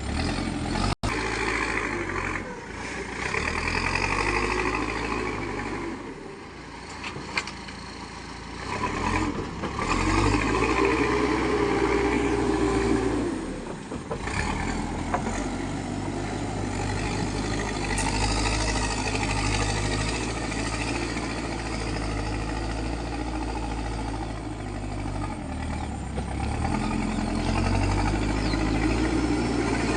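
Backhoe loader's diesel engine running and repeatedly revving up and settling back down as it works, with an occasional short knock.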